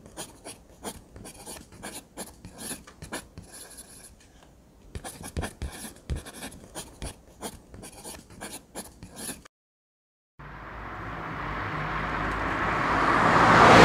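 Typing sound effect: rapid, irregular key clicks that stop about nine and a half seconds in. After a second of silence, a rushing noise fades in and swells steadily louder toward the end.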